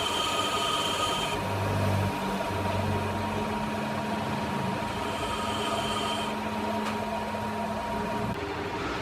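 Metal lathe running, its spindle and gearing giving a steady hum and whine as a carbide tool turns the end of an alloy-steel shaft. A higher whine comes in briefly twice.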